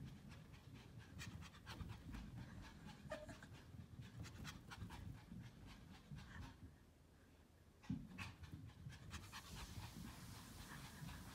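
Small dog (Pomeranian) panting faintly, with a soft thump about eight seconds in.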